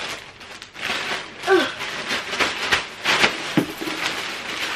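Plastic mailer bag rustling and crinkling as clothes are shaken and dumped out of it, with a brief falling voice sound about a second and a half in.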